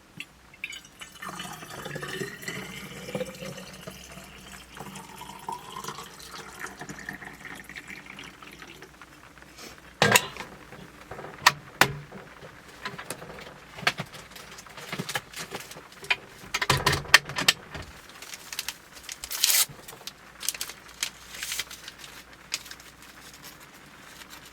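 Water poured steadily into a container, its pitch rising for about eight seconds as the vessel fills, while making tea. After that, a series of sharp knocks and clatters as things are handled and set down.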